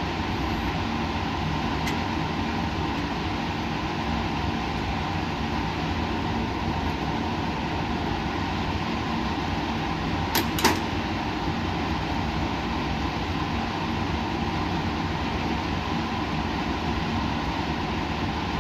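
Steady hum and hiss of laboratory machinery, several steady tones over an even rush of noise, with two quick clicks about halfway through.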